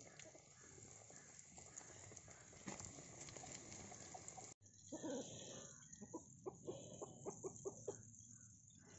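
Chicken pieces deep-frying in hot oil, a steady sizzle. After a cut about four and a half seconds in, it gives way to a run of short sharp sounds, about three to four a second.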